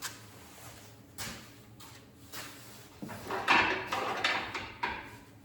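Metal knocks and scraping as an LS V8 engine is worked down into a tight engine bay. A few single clunks come first, then a louder run of clattering and scraping over the last two seconds or so.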